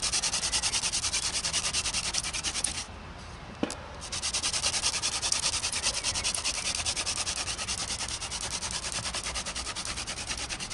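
Hand drill fire-making: a wooden spindle spun fast between the palms, pressed hard down into a wooden hearth board, giving a rapid rhythmic rasping with every back-and-forth stroke. This is the high-speed, high-pressure phase that heats the notch to make an ember. The rasping breaks off briefly about three seconds in, with a single knock, then starts again.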